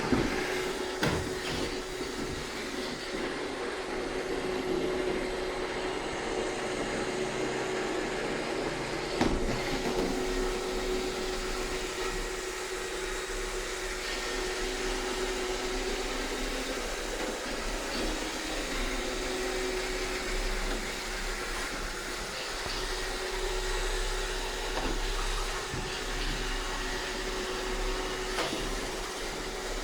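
iRobot Roomba 630 robot vacuum running steadily, its motor hum holding one pitch under a wash of brush and suction noise, with a few sharp knocks, the loudest about nine seconds in.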